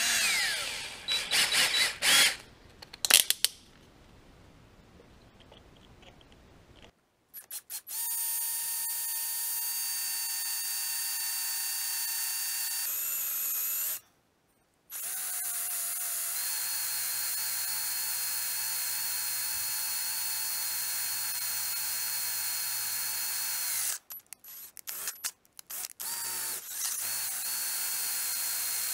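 Handheld drill running a number nine twist bit through a metal collar, its motor giving a steady whine in long runs. It stops for a moment about halfway, and near the end it cuts out and restarts in a few short trigger blips before running on. A few seconds of clicking and rattling come first.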